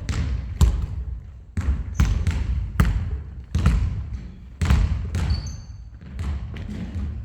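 Basketballs bouncing on a hard gym floor: irregular thuds, roughly one every half-second to a second, with a brief high squeak about five seconds in.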